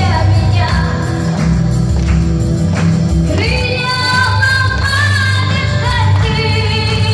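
A female vocalist singing a pop song live over a backing track, with held notes and vibrato from about halfway through.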